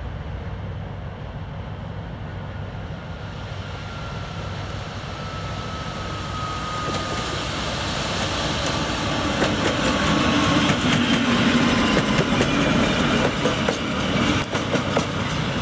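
TEP70 diesel passenger locomotive running light, its 16-cylinder diesel engine droning steadily and growing louder as it approaches. From about nine seconds in, as it draws level and passes, its wheels click sharply over the rail joints.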